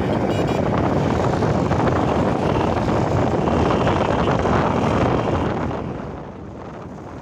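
Loud wind rumbling on the phone's microphone, easing off about six seconds in.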